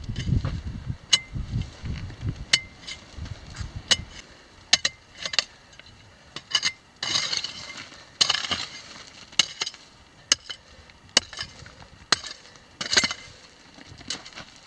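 Loose mine waste rock clinking and sliding under a person's movement, with irregular sharp clicks and a couple of longer scraping slides about halfway through. A low rumble runs under the first four seconds.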